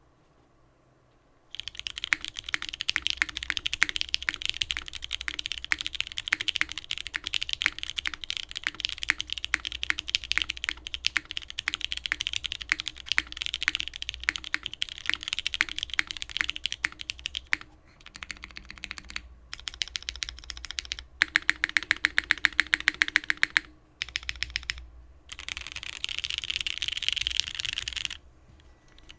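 Typing on a Singa Kohaku mechanical keyboard with vintage Cherry MX Black linear switches soldered to an aluminium plate and GMK keycaps. Fast continuous typing starts about a second and a half in and breaks into shorter runs with pauses in the second half, including a rapid even string of keystrokes.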